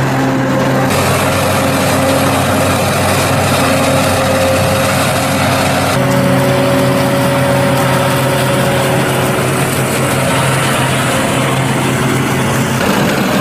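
Diesel engines of a New Holland FR700 forage harvester and a Claas Arion tractor pulling a forage wagon, running steadily while chopping corn silage. About halfway through the engine tones shift as the Claas Arion 660 with its Strautmann forage wagon drives close by.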